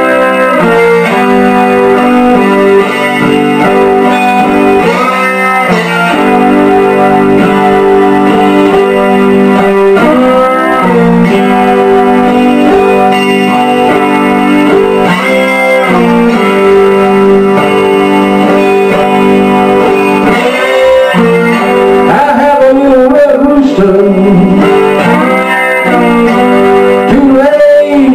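Stratocaster-style electric guitar played with a bottleneck slide in a slow blues. Notes slide up into held, ringing chords about every five seconds.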